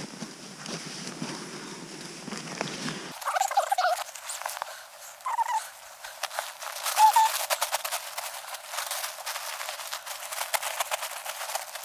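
Hammock gear and fabric rustling and crinkling as it is handled, with scattered clicks and a few brief pitched squeaks. About three seconds in the sound turns thin, its low end suddenly cut.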